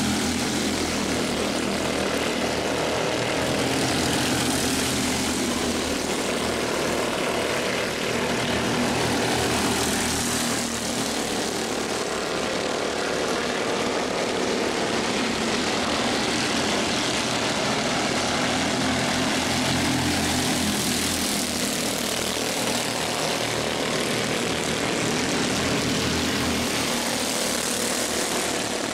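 Engines of a field of Mini Cup race cars running on the oval: a steady drone that swells several times as the cars pass.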